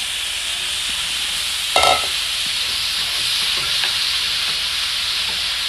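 Raw ground beef sizzling as it hits a hot pot and is stirred and broken up with a spatula, with one sharp clank about two seconds in.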